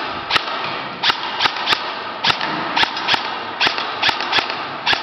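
Sharp gunshot pops fired singly and in quick pairs, about a dozen at an irregular pace of two to three a second, each with a short echo.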